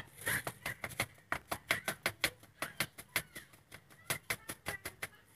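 Quick, uneven light taps, about five or six a second, of a small wooden-handled tool on a plywood mold frame filled with wet cement, knocking it so the cement settles level.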